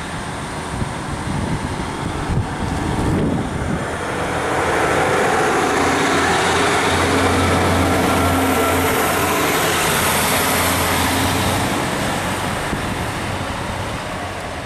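Class 150 Sprinter diesel multiple unit pulling away from the platform and passing close by. Its diesel engines run with a low steady note under the wheel and rail noise. The sound swells about four seconds in and fades as the train moves off.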